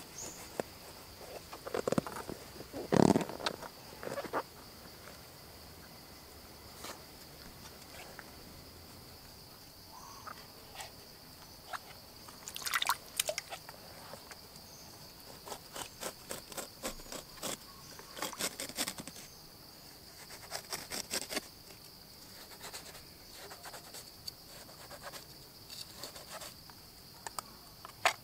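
A knife cutting and scraping through the rind and flesh of a large green gourd: irregular clusters of short crunching strokes, loudest about three seconds in, with a long run of quick strokes in the second half. A steady high insect drone goes on underneath.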